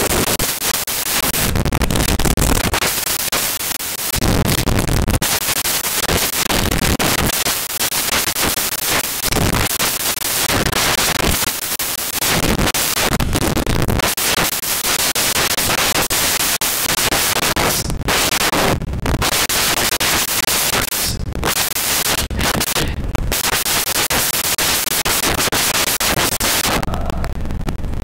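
Loud, steady rushing noise like static, cutting out briefly several times in the second half.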